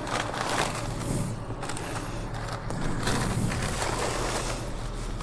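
Thin plastic carry-out bag being handled, crinkling and rustling on and off, over a steady low hum.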